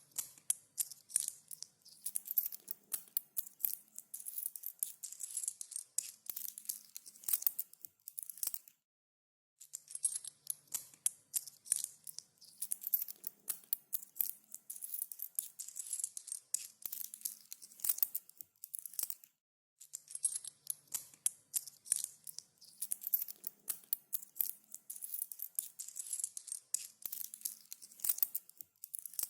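Coins jingling and clinking together in dense runs of sharp metallic clicks. The take repeats three times, with short breaks about nine and nineteen seconds in.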